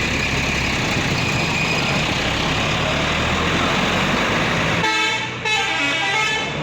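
Tour bus engine running with a steady rumble, then about five seconds in a bus's multi-tone 'telolet' horn sounds, changing note once, for about a second and a half.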